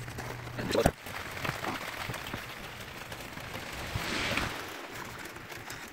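A sharp knock a little under a second in, then a short hard puff of breath about four seconds in: a person blowing by mouth to clear debris from the injector bore.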